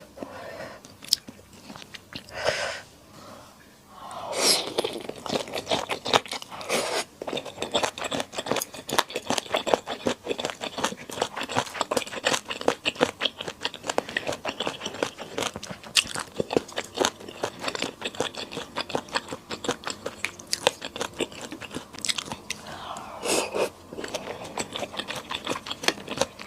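Close-miked eating sounds: steady chewing with dense wet clicks, smacks and crunches. A few longer noisy sucking sounds break in, two near the start and one near the end.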